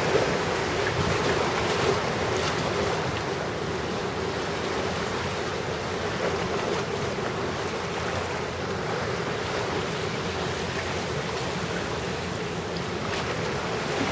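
Rough, typhoon-driven sea surging and breaking, with wind buffeting the microphone, a steady rushing noise throughout.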